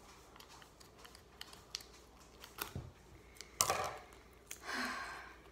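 Scissors snipping at duct tape and the tape being handled, with small scattered clicks. In the second half come two short ripping rasps of under a second each, as tape is pulled off the roll and wound on; the first is the loudest.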